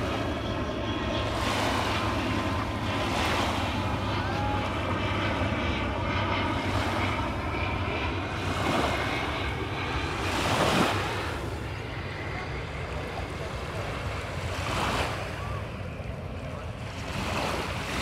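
Small waves breaking and washing onto a sandy shore every second or two, over a steady hiss of surf. A low steady drone runs underneath for much of the time and fades out about two thirds of the way through.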